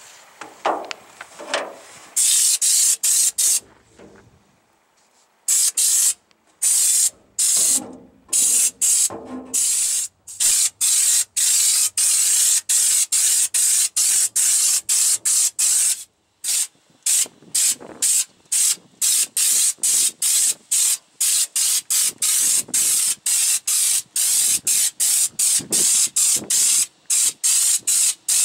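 Compressed-air spray gun, screwed onto a U-POL Raptor bedliner bottle, hissing in short bursts as the trigger is pulled and released to lay on textured bedliner. There is one longer burst and a pause, then a quick run of short bursts at about two a second.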